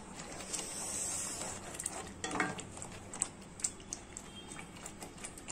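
A spatula stirs thick ripe red chilli pickle paste in a kadai for the first two seconds or so, then the paste splutters with scattered sharp pops as it cooks down. This is the 'tuppiki tuppiki' spluttering that shows the oil has separated and the pickle is done.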